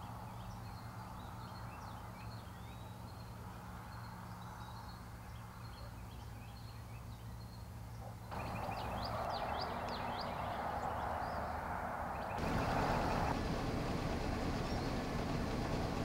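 Outdoor field ambience with small birds chirping in short high notes over a steady background hiss and a low hum. The background noise steps louder about eight seconds in, with a quick run of chirps, and again about twelve seconds in.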